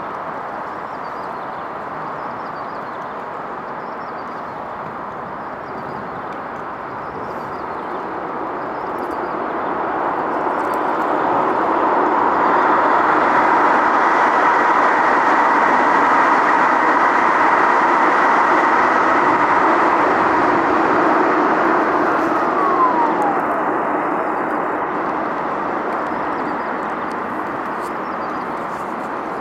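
Steady traffic noise with a train passing that swells to a loud rumble with a faint whine, then fades; a short falling squeal near the end of the pass.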